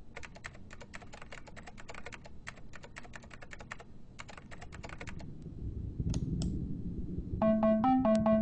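Typing on a laptop keyboard: quick, irregular key clicks for about five seconds. After a pause a low swell builds, and an electronic keyboard melody starts near the end.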